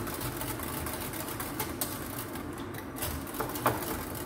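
Wire whisk beating fast in a pot, a continuous rattling clatter with a couple of louder clinks against the pot's side, whisking powdered coconut milk so it dissolves.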